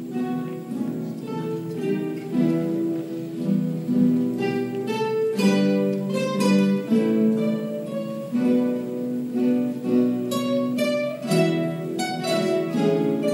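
A large ensemble of nylon-string classical guitars playing together, plucked melody over sustained chords, with several sharp strummed chords in the second half.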